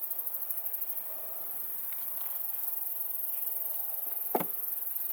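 High, steady insect trill, pulsing rapidly in the first second, over the faint hum of honeybees at the open hive, with one sharp knock about four seconds in.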